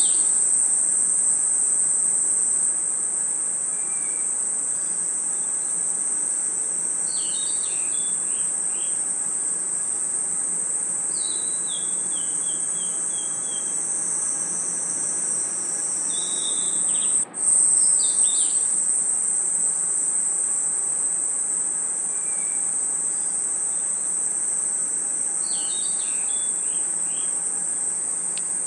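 Dense, steady high-pitched chorus of night crickets trilling, with a short descending run of chirps, typical of a bird call, every few seconds. The chorus cuts out for an instant about two-thirds of the way through.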